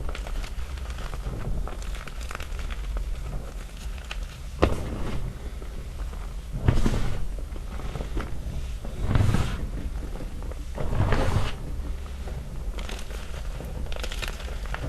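Small chunks of gym chalk being crushed in loose chalk powder: subtle snaps and crumbly crunches. A sharp snap comes a little over four seconds in, then four crunches about two seconds apart.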